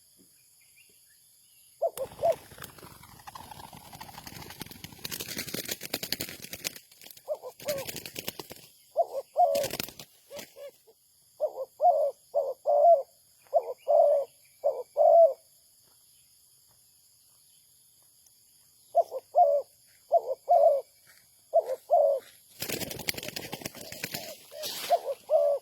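Spotted dove cooing in short repeated phrases of two to four low notes, pausing for a few seconds midway. Several longer bursts of broad noise come between the phrases.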